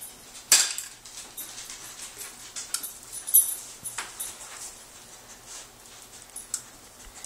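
A hen's egg is cracked on the rim of a mixing bowl, one sharp crack about half a second in, followed by a few small clicks and taps of eggshell and kitchenware.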